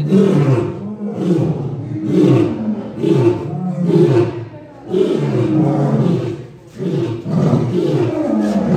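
Lion roaring: a long run of deep, repeated roars, each call falling in pitch, with two short breaks.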